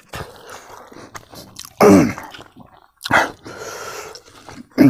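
A person chewing food with wet mouth sounds while eating with his hands, with two short vocal sounds falling in pitch, about two seconds in and near the end.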